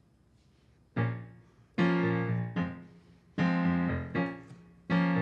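Piano chords played slowly on a keyboard: a few struck chords, each ringing and fading before the next, beginning about a second in after a moment of near silence.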